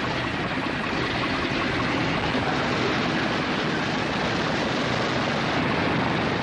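Steady, even noise of propeller aircraft piston engines running.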